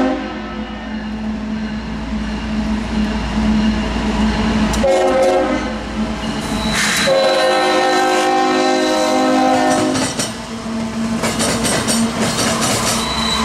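Fouled Nathan K5HLB five-chime horn on a CSX freight locomotive, sounded as a horn salute: a short blast about five seconds in, then a longer one held for about three seconds, over the diesel's steady drone. Near the end the locomotives pass close by with wheels clattering on the rails.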